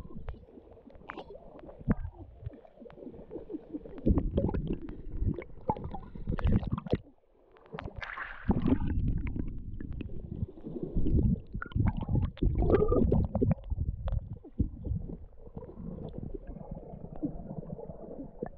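Stream water sloshing and gurgling as hands grope among the stones to catch a fish, heard through a camera that is partly underwater, which makes it a muffled, irregular rumble. There are scattered sharp clicks and a short lull about seven seconds in.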